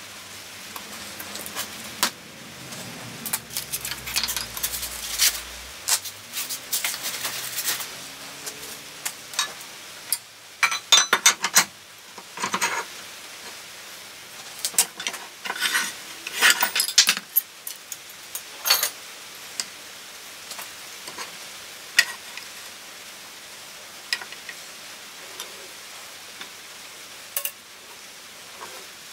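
Metal clanks and rattles of a wood lathe's cast-iron tool rest and banjo being slid into place and locked, in irregular bursts of knocks with single knocks after.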